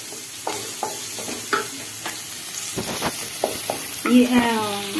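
Chopped onions sizzling in oil in an aluminium kadai, stirred with a wooden spatula that scrapes and knocks against the pan several times. A voice is heard briefly near the end.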